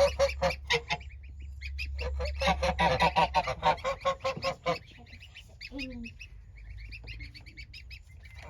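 Geese honking in rapid runs of short calls, loudest in the first half, then thinner and fainter calls near the end.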